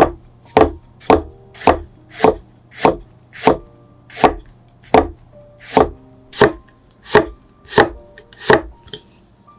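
Kitchen knife slicing a rolled sheet of daikon radish into fine strips on a wooden cutting board: about fourteen evenly spaced chops, roughly one and a half a second, that stop shortly before the end.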